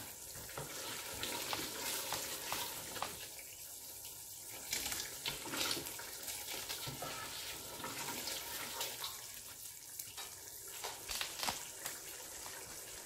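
Liquid sloshing as a spatula stirs soup in a stainless steel pot, with faint scattered clicks of the spatula against the pot.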